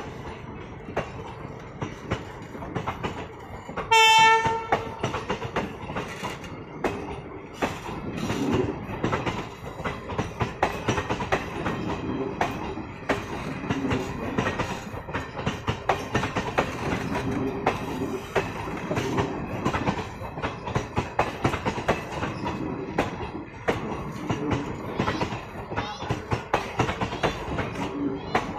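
Indian Railways passenger coaches rolling past close by as the train pulls out, wheels clicking over the rail joints in a steady clickety-clack over a running rumble. About four seconds in, a loud, short train horn blast, under a second long.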